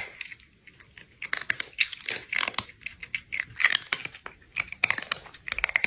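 Close-miked crunchy chewing of dry, crisp food: irregular crunches a few times a second, sparse at first, then coming steadily from about a second in.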